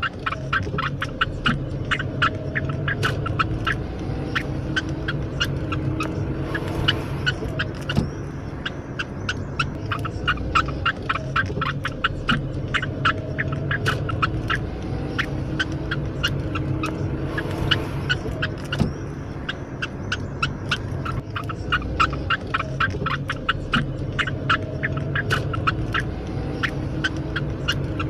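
Budgerigar giving rapid, repeated short squeaks, several a second without pause, a pitiful distressed squeaking that the uploader calls a fit. A steady low hum runs underneath.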